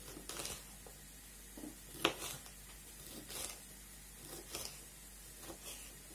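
Kitchen knife slicing a crisp sweet bell pepper into small sticks on a wooden cutting board. Each stroke gives a short crunch and tap of the blade on the board, about once a second, irregularly spaced.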